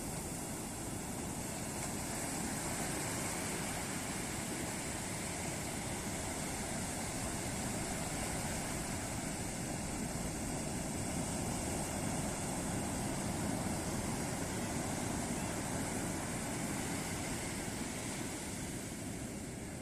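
Ocean surf breaking and washing up a beach: a continuous rush of waves with a low rumble, swelling slightly a few seconds in and again about two-thirds of the way through.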